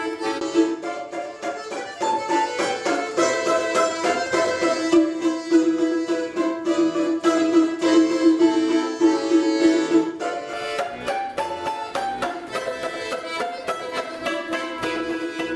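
Instrumental string music: a rapid run of plucked notes over a held low note, with a melody moving above it.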